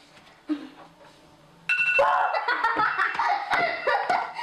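Girls laughing, with a phone timer alarm sounding as a steady two-tone beeping from about two seconds in: the 30-second countdown has run out.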